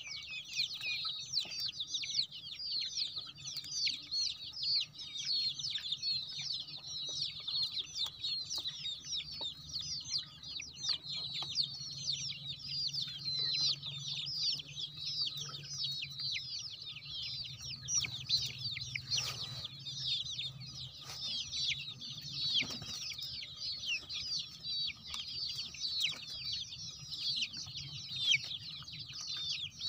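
A flock of young country-breed (naatu) chickens peeping and chirping nonstop, many short high calls overlapping.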